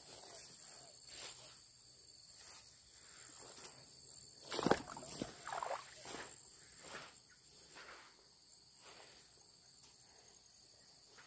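Insects buzzing steadily at a high pitch, with scattered faint rustles and clicks in the undergrowth and a louder brief rustle about four and a half seconds in.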